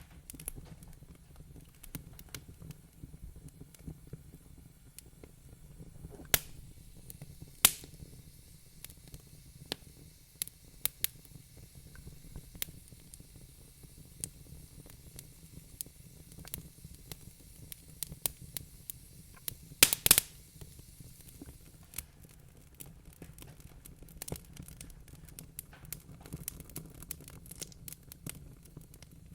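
Wood fire crackling in a fireplace: irregular snaps and pops over a steady low rumble, with a few louder pops and a sharp cluster of cracks about two-thirds of the way through.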